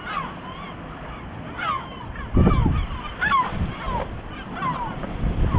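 Gulls calling over the sea, many short falling cries one after another. Wind buffets the microphone in low gusts, most strongly about halfway through.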